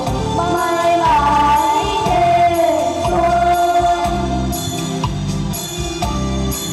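A group of children singing a song together in held, wavering notes over an instrumental accompaniment with a steady low pulse.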